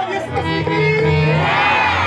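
Harmonium playing a few held notes over crowd voices, with a voice calling out in a rising pitch near the end.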